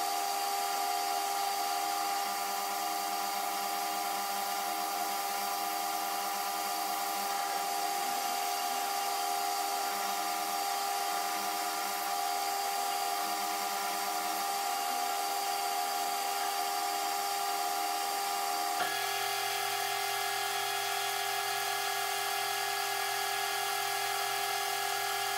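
Metal lathe running steadily, its drive giving a constant whine as it turns a high-tensile steel ring in the chuck. About two-thirds of the way in the tone shifts and a low hum joins.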